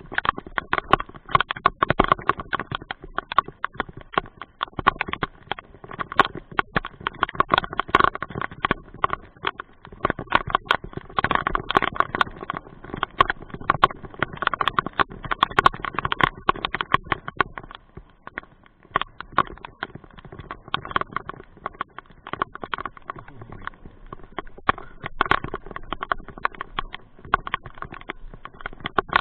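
Rain, with drops tapping fast and irregularly on a cover close to the microphone, easing off for a moment about two-thirds of the way through.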